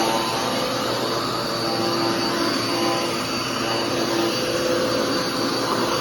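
Dirt Devil PowerMax Pet upright vacuum cleaner running steadily: a motor whine with a few held tones over the rush of air, wavering slightly in strength.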